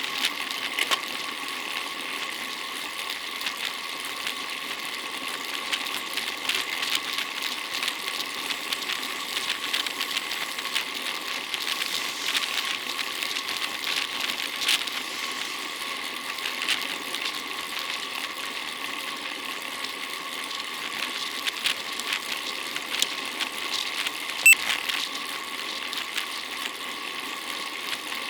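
Bicycle in motion: a steady mechanical whir from the drivetrain and tyres, with a constant hum and fine ticking, and one sharp click near the end.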